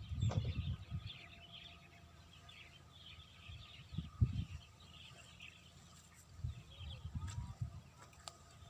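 Birds chirping in the background, broken by a few low rumbles or bumps near the start, about four seconds in and again toward the end.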